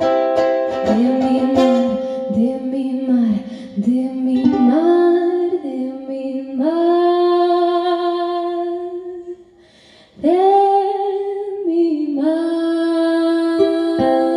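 Woman singing a slow song while strumming a ukulele, with several long held notes and a brief pause about ten seconds in.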